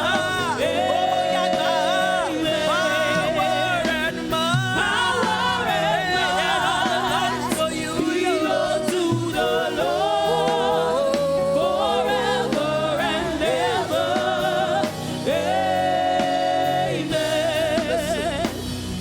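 Live gospel praise-and-worship singing, with long held notes sung with vibrato over instrumental accompaniment.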